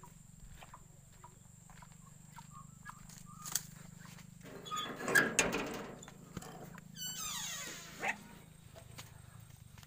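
Farm animals calling: a loud cry about five seconds in, then a call falling in pitch about two seconds later and a short one just after, over faint scattered clicks.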